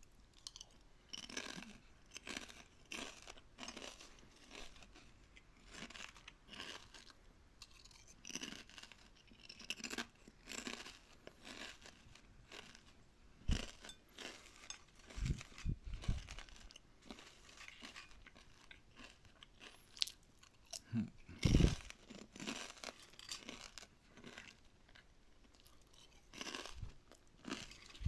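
Crunchy food being chewed close to the microphone: a steady run of crisp crunches, with a few heavier, deeper bites about halfway through and again a little later.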